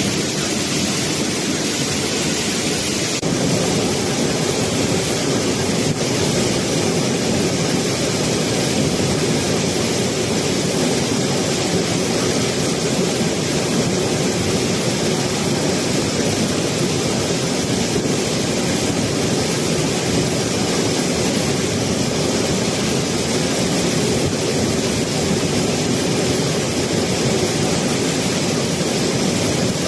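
Waterfall heard up close: a loud, steady rush of falling water.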